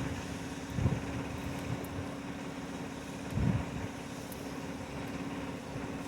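Concrete mixer truck's diesel engine running steadily, with two brief low surges, about a second in and again near the middle.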